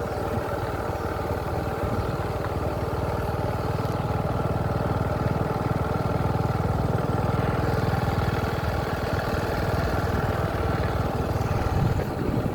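An engine running steadily, with a low rumble under a steady hum.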